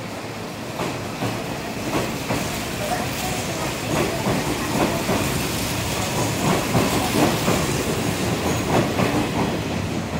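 Hanshin 5700-series electric commuter train pulling out of the platform. Its wheels click over rail joints, the clicks coming faster and louder as it picks up speed.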